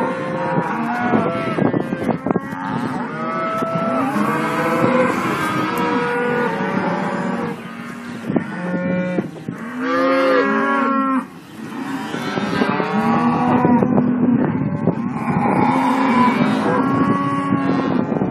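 A herd of Simmental calves mooing, many calls overlapping one another almost without a break, with a short lull a little past the middle.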